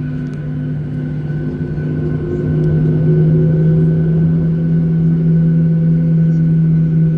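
Airliner jet engines heard inside the passenger cabin: a steady rumble with a strong low hum and several higher tones, one of them pulsing, getting louder about two and a half seconds in.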